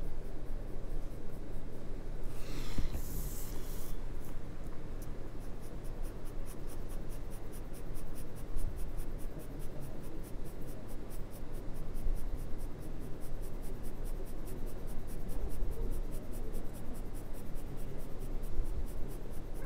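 2B graphite pencil scratching across drawing paper in rapid, repeated shading strokes, with a brief louder rustle about two seconds in.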